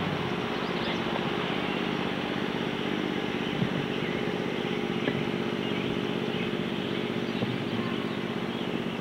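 Steady drone of a car driving, engine and road noise together, with a few light knocks.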